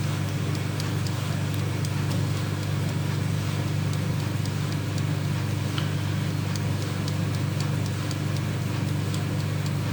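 A 1970s Creda Compact 3 tumble dryer running: a steady low hum from its motor and turning drum, quiet and smooth, with faint light ticks over it.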